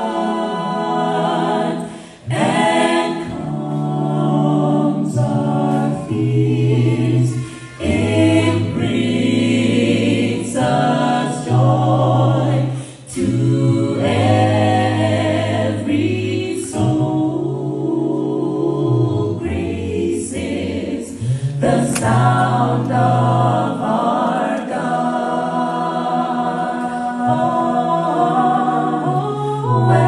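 A cappella gospel vocal group of men and women singing in close harmony, with a bass voice carrying low notes under the others. The singing breaks off briefly between phrases about 2, 8 and 13 seconds in.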